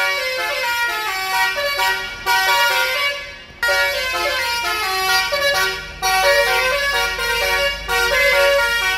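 Indonesian bus telolet horn, a multi-tone horn played as a tune: quick runs of stepped musical notes, broken by short pauses about two, three and a half and six seconds in.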